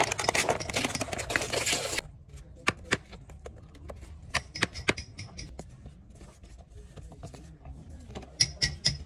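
Handwork sounds: dense rustling and crackling for about two seconds that stops abruptly, then scattered sharp clicks and taps, with a quick run of clicks near the end.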